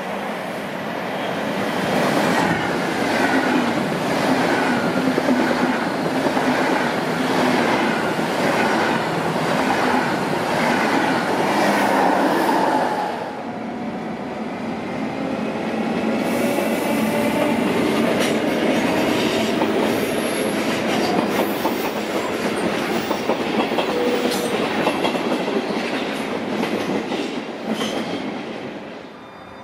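Two SBB electric passenger trains, one after the other. First a train rolls through with a rhythmic clickety-clack of its wheels over rail joints, cut off abruptly about 13 seconds in. Then an RBDe 560 multiple-unit set runs in with wheel rumble and a rising whine, fading near the end.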